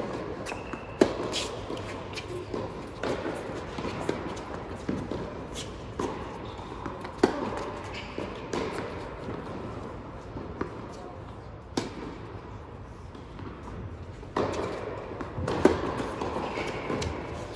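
Tennis ball struck back and forth by rackets in a rally on an indoor court: sharp pops every second or few, with ball bounces, echoing in the large hall.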